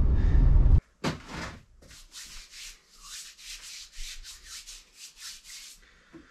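Car cabin noise from the engine and road under way for the first second, cut off suddenly. Then a pair of hands rubbing together briskly, a dry hiss at about three strokes a second, stopping shortly before the end.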